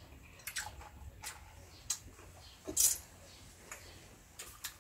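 Lychees being peeled and eaten: scattered wet clicks and squishes of peeled shells and juicy fruit being chewed, the loudest about three seconds in.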